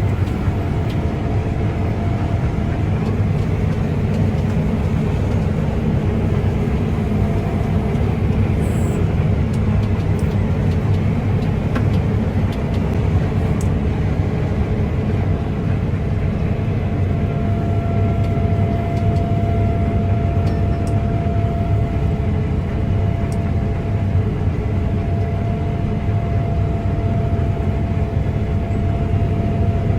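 Combine harvester running steadily under load: a constant low rumble with a faint steady whine above it that grows stronger about halfway through.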